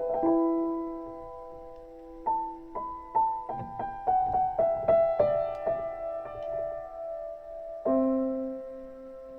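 Improvised solo piano: a chord rings out and fades, then a run of quick single notes follows, and a fresh chord is struck near the end and left to sustain.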